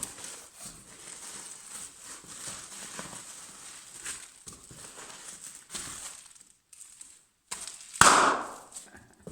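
Paper and plastic packaging rustling and crinkling as a parcel is unpacked, with many small crackles, then one loud crackling burst about eight seconds in that fades over a second.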